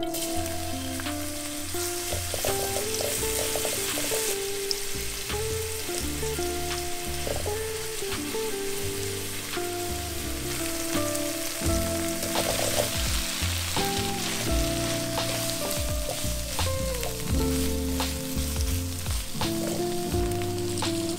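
Oil sizzling in a nonstick wok as chopped garlic and bean paste are stir-fried and scraped around with a silicone spatula, then stuffed tofu puffs frying in the pan. Background music plays alongside.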